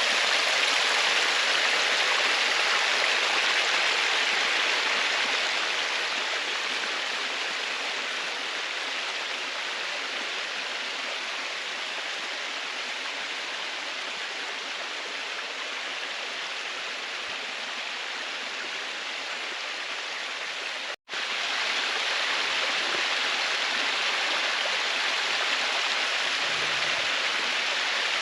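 Steady rush of flowing stream water, an even hiss with no rhythm. It drops out for an instant about three-quarters of the way through, then comes back slightly louder.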